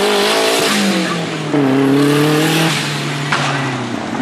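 Off-road competition vehicle's engine revving in surges, its pitch falling, jumping back up and holding, then dropping again.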